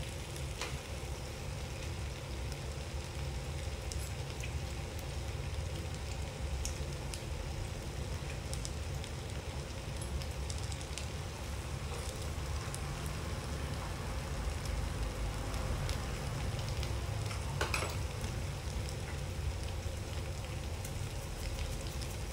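Kimchi and pork belly sizzling quietly in a nonstick frying pan over a gas burner. Scattered fine crackles sit over a steady low rumble, with one sharp click late on.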